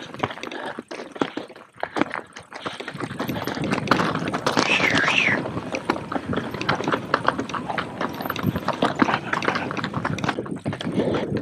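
Enduro mountain bike descending a rocky mountain trail, its tyres and frame knocking and rattling over stones and gravel, with a brief wavering squeal about halfway through.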